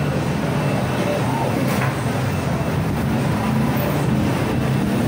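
Steady, loud mechanical hum with a low drone, mixed with faint, indistinct voices in the background.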